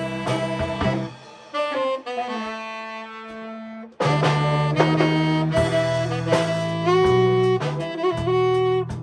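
Small jazz combo of tenor and baritone saxophones, piano, electric bass guitar and drum kit playing. About a second in the band drops out, leaving one held note that slides down and hangs, and then the full band comes back in all at once.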